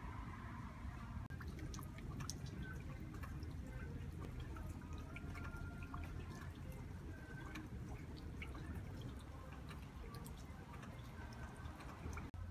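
Rainwater dripping: many small drops tap and plink irregularly over a soft steady patter of falling rain.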